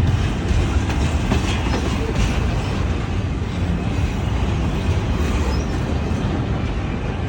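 Freight train's container cars rolling slowly past close by: a steady rumble of wheels on rail with occasional clicking over rail joints.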